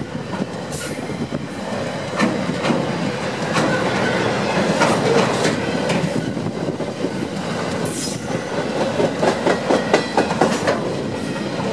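Container wagons of a long freight train rolling past close by: a steady rumble of steel wheels on the rails, with sharp wheel clicks and clatter that come thickest near the end.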